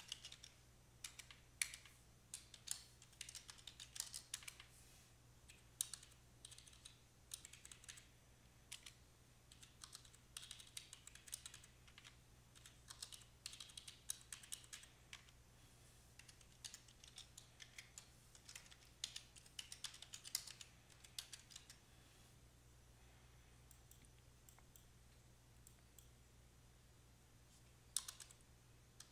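Computer keyboard typing in quick, irregular runs of keystrokes. The typing stops for several seconds after about 21 s, then a brief run comes near the end.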